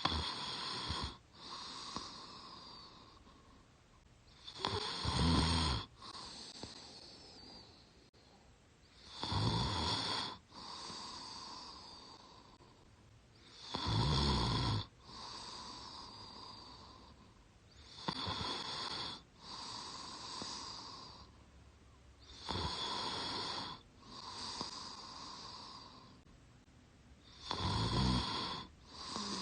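A sleeping woman snoring through her mouth: seven snores about every four and a half seconds, each lasting about a second and followed by a quieter breath.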